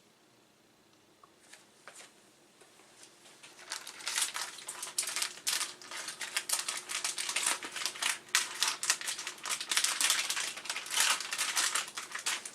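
A thin plastic bag crinkling and rustling as a circuit board is worked into it, a tight fit. A few faint clicks come first, and the dense crinkling starts about three and a half seconds in.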